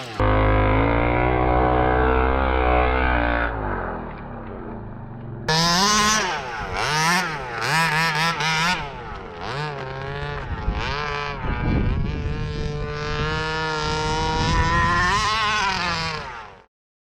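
29cc two-stroke engine of a 1/5-scale Baja 5B RC car running. It runs steadily and slightly muffled at first, then revs up and down in quick throttle blips, then climbs and holds at higher revs before cutting off suddenly near the end.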